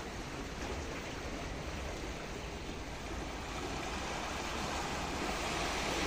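Small sea waves washing and splashing against shoreline rocks and breakwater blocks, a steady surf hiss that grows a little louder near the end.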